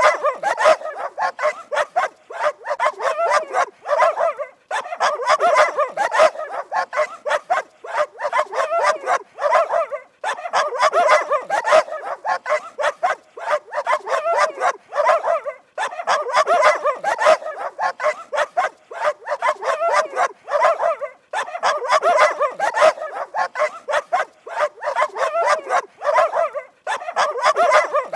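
Dogs barking in fast, continuous runs, broken by short pauses every few seconds.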